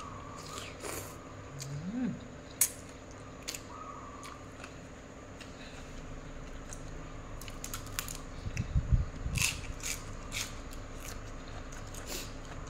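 Close-miked chewing and crunching of a cucumber and rice-noodle salad eaten by hand: irregular crisp crunches and wet clicks, with a short low rumble about nine seconds in, over a faint steady hum.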